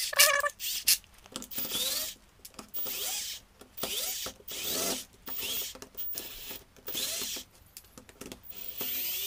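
Small cordless screwdriver running in short bursts, roughly one a second, each with a brief whine that rises and falls, as it backs screws out of a plastic cordless-drill housing.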